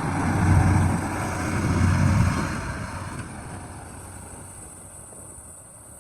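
Heavy diesel engine of earthmoving machinery running hard, swelling twice within the first couple of seconds and then fading away gradually.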